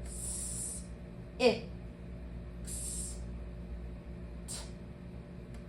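Speech: a student quietly sounding out a word piece by piece, with two drawn-out hissing "s" sounds and one short spoken syllable about a second and a half in.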